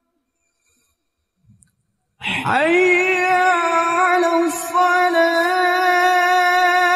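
A muezzin's voice chanting the adhan, the Islamic call to prayer. After a silent pause, a new phrase begins about two seconds in and is held as one long, ornamented note that wavers slightly in pitch.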